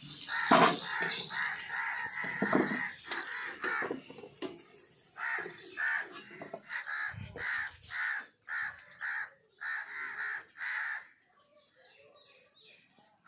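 Crows cawing: a run of harsh, repeated caws about two a second, dying away a couple of seconds before the end.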